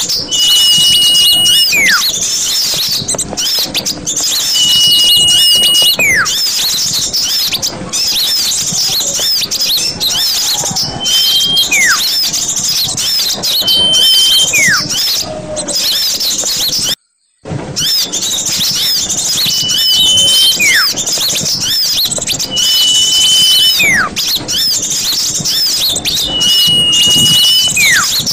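Bird-lure recording of many small birds chirping and twittering densely, with a short, steady, high whistle repeating about every four seconds and falling whistled notes between. The sound cuts out briefly about two-thirds of the way through.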